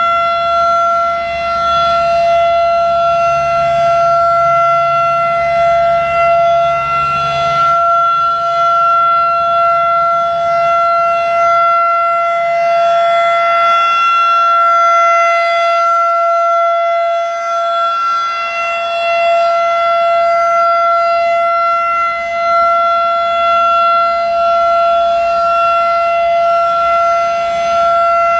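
Federal Signal 2001-DC electromechanical rotating outdoor warning siren sounding its steady Alert signal: one loud unwavering pitch with overtones, the level swelling and dipping slightly as the horn rotates.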